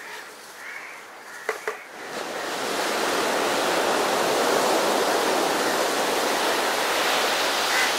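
Surf breaking on a sandy beach, a steady rush that swells in about two seconds in and then holds. A few short bird calls come before it and again near the end.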